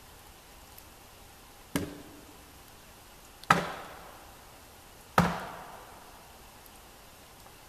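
Axe chopping into a log: three sharp strokes about a second and a half apart, each with an echoing tail, the second and third the loudest.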